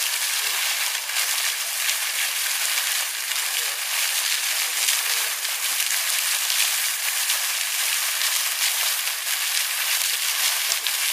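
Steady hiss of a fountain's spray falling onto a pond's surface.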